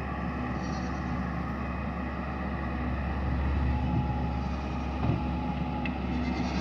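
Engine of a work machine running steadily, growing slightly louder, with one short knock about five seconds in.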